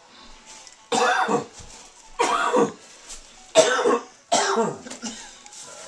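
Four short, loud cough-like vocal outbursts from a person during rough play-wrestling, each about half a second long and a second or so apart.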